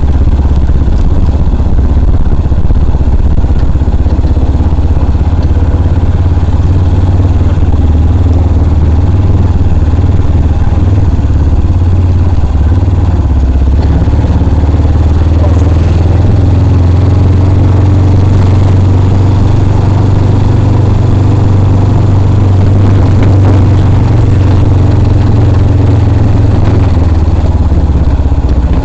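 Motorcycle engine running steadily while riding, a loud, constant low rumble.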